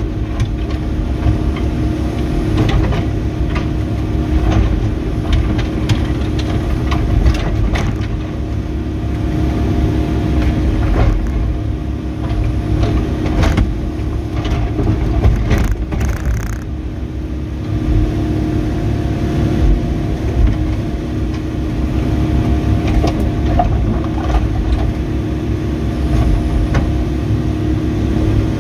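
Volvo ECR88D compact excavator working: its diesel engine runs steadily under hydraulic load, and the engine note drops back a couple of times. Scattered knocks and scrapes come from the bucket digging.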